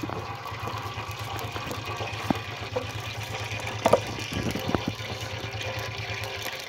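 A low, steady engine-like hum that stops abruptly near the end, with a few sharp clicks of a knife cutting potatoes by hand over a bucket of water, the loudest about four seconds in.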